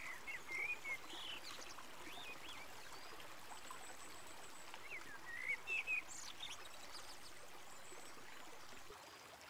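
Shallow stream rushing over stones in a steady wash. Short songbird chirps come in twice: just after the start and again about five to six seconds in.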